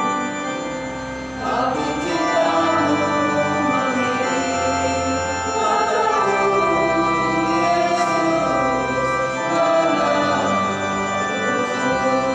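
Church choir singing a hymn with organ accompaniment. The organ holds chords alone for the first second and a half or so, then the voices come in and sing over the sustained organ.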